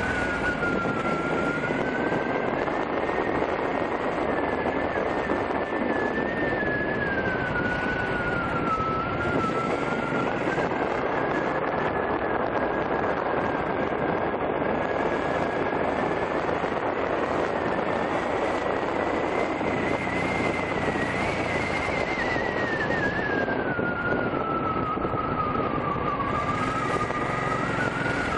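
Motorcycle on the move, picked up by the rider's head-worn Google Glass: a steady rush of wind and engine noise, with a thin whine that slowly rises and falls in pitch.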